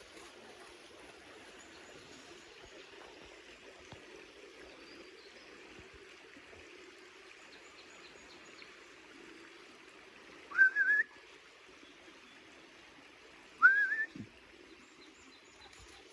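Two short, loud rising whistles about three seconds apart, each sweeping up and wavering near the top. They are taken for the call of a stag.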